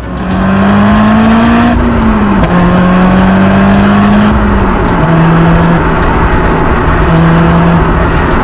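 Honda S2000's 2.2-litre four-cylinder engine pulling through an ASM I.S.Design aftermarket silencer while driving, its exhaust note climbing in pitch, dropping about two seconds in, then falling again after about four seconds and holding a steadier, lower note.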